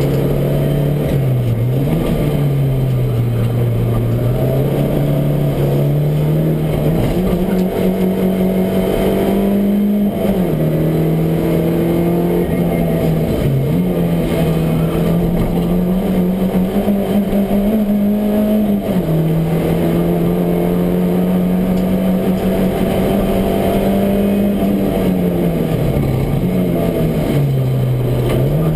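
Race car engine under hard load, heard from inside the stripped, roll-caged cabin. Its pitch climbs through each gear and drops sharply several times, about ten seconds in, around thirteen seconds, near nineteen seconds and again near the end.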